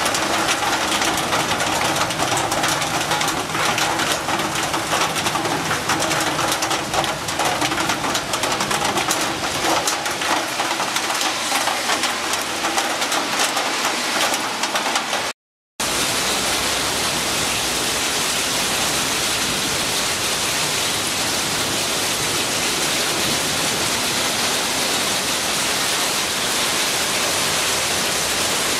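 Heavy rain pouring down in a thunderstorm: a dense hiss full of close, crackling drop impacts. After a cut about halfway through, an even, steady downpour hiss.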